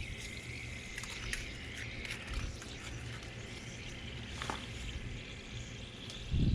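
Outdoor ambience: insects, likely crickets, chirping faintly over a low steady rumble, with a few light scattered clicks.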